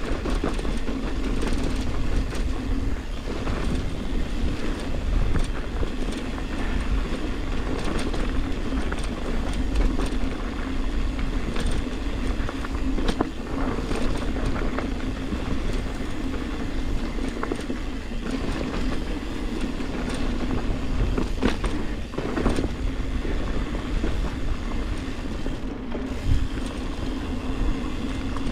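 Ibis Ripmo mountain bike descending a bumpy, loose dirt singletrack: tyres rumbling over the dirt with a steady low rush, and many quick rattles and clacks from the bike over the bumps.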